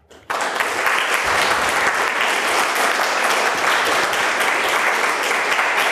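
Audience applauding, starting suddenly just after the start and keeping up steadily.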